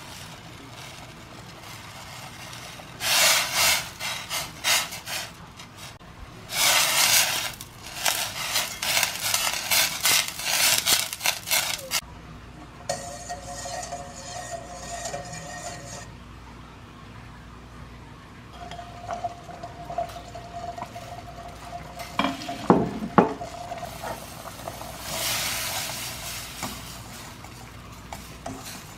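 Wire whisk stirring melted butter and water in a stainless steel bowl, clinking and scraping against the metal in several bursts. There are a couple of sharp knocks later on.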